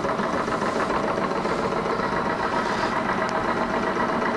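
Small electrically heated two-cylinder Stirling engine running steadily, its flywheel turning a small generator through a pulley that powers LED loads; an even, unchanging mechanical running sound.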